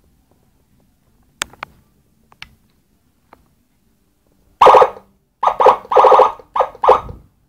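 Electronic siren module through a 10 W horn loudspeaker: a few faint clicks, then about six short, loud siren blasts in quick succession over the last three seconds.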